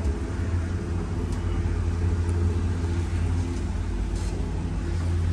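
Boat engines running steadily under way: a low, even drone heard from inside the Hewescraft 290 Adventurer's enclosed cabin.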